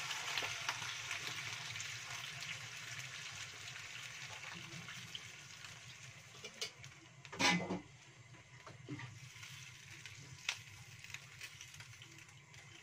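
Water poured into a hot wok of stir-fried greens, sizzling and hissing and dying away steadily. There is a sharp knock about seven and a half seconds in, and a few light clicks.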